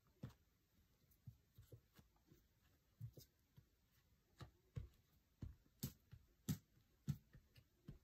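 Faint, irregular soft taps and thumps of fingers pressing air-dry clay into a mould on a tabletop, about two a second, loudest around six seconds in.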